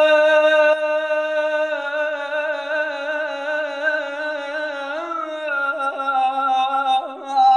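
A man singing an Arabic mawwal, drawing out one long held note. The note wavers with a vibrato from about two seconds in, then bends and shifts pitch around five seconds in, with another note change near the end.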